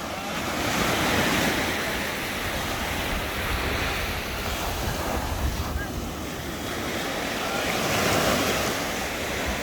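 Sea waves washing onto the shore with wind buffeting the microphone; the surf swells about a second in and again near the end.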